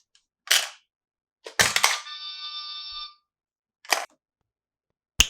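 Plastic toy playset pieces handled: a short rustle, then a clatter followed by a bell-like ringing tone for about a second, another brief rustle, and a sharp click near the end.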